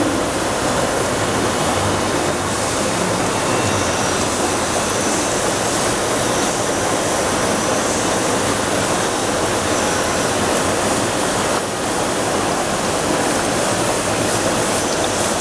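Steady, loud rushing of water circulation and aeration in aquarium tanks, an even hiss with no distinct events.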